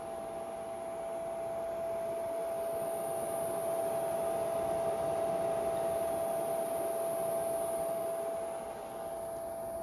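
Steady electrical whine over a fan hiss from a G540 four-axis stepper controller powering NEMA 23 stepper motors. The hiss swells in the middle and dips briefly near the end.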